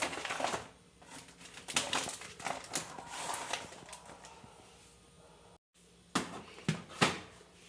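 Rustling and knocking of household items being handled and set down while a fridge is being organized. Three sharper knocks come near the end.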